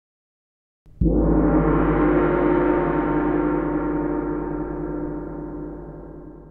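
A gong struck once about a second in, with a deep low rumble under its ringing, which fades slowly over several seconds.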